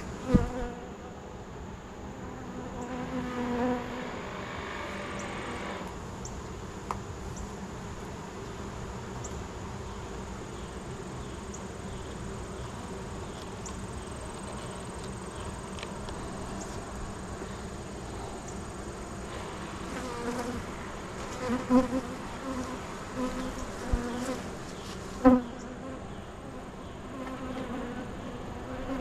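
Honeybees buzzing steadily around an opened hive, a continuous low hum, with a few sharp knocks, one at the start and a couple near the end.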